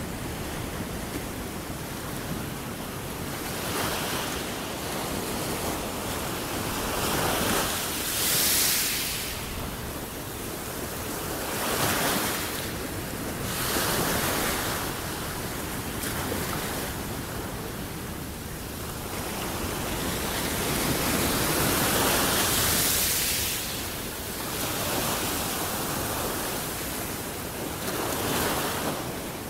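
Small sea waves breaking and washing up a sandy shore: a continuous rush of surf that swells every few seconds as each wave comes in.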